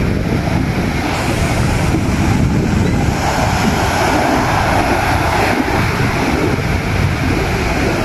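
Ocean surf breaking and washing up the shore, with wind buffeting the microphone in a steady low rumble.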